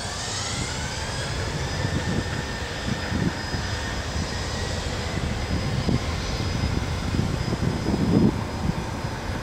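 Boeing 717's two rear-mounted Rolls-Royce BR715 turbofans spooling up to takeoff thrust: a whine rising in pitch over the first second, then holding steady over a loud rumble of jet blast that comes in irregular gusts.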